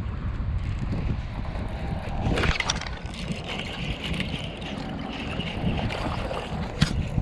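Wind rumbling on the microphone, with a couple of sharp knocks, one about two and a half seconds in and one near the end.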